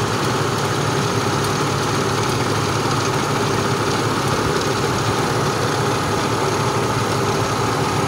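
A 2002 Ford Ranger's engine idling steadily under the open hood, with the air conditioning running during a refrigerant recharge.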